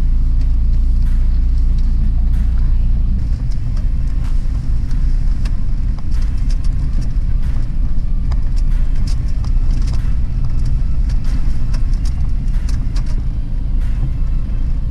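Car driving slowly over a rough, rocky gravel road, heard from inside the cabin: a steady low rumble of engine and tyres with frequent small knocks and rattles.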